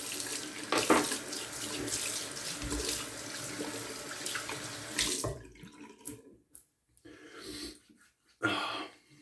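Bathroom tap running steadily into a sink, shut off about five seconds in. A few light knocks follow, and a short hiss near the end.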